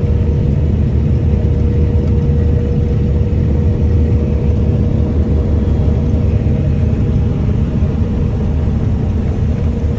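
Combine harvester running steadily while harvesting rye: a loud, even low rumble with a steady whine held at one pitch.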